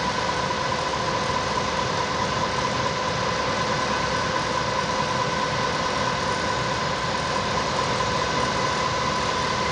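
Steady industrial machinery noise: a constant rushing hiss with an even humming tone, unchanged throughout.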